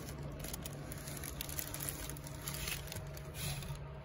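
Clear plastic wrapping crinkling and rustling in short, scattered rustles as it is pulled back by hand, over a steady low hum.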